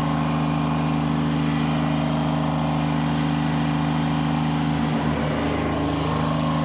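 Kubota BX compact tractor's three-cylinder diesel engine running steadily at high revs, holding an even pitch while its loader hydraulics pull against a load.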